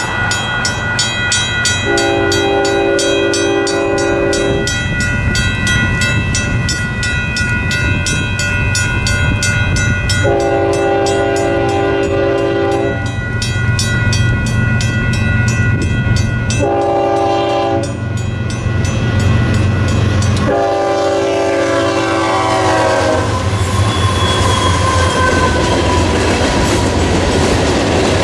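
A diesel locomotive's horn sounds the grade-crossing signal, long, long, short, long, the last blast dropping in pitch as the locomotive passes. Under it runs the engine drone, with a rapid bell ringing in the first half and the rolling clatter of train wheels after the horn ends.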